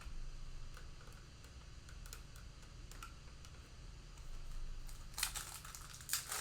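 Trading cards and card packs being handled: faint scattered clicks and flicks, then a few louder rustling bursts near the end.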